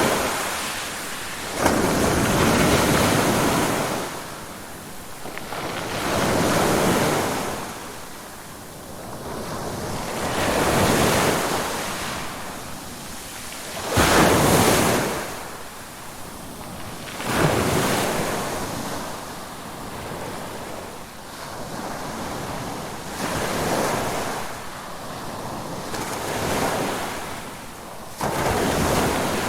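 Ocean waves breaking and washing ashore, a steady rushing that swells and ebbs every few seconds, with sharper, louder breakers about 2, 14, 17 and 28 seconds in.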